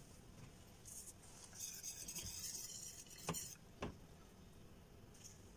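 Quiet kitchen handling sounds around a saucepan on the hob: a faint hiss through the middle, and two light clicks a little over three seconds in.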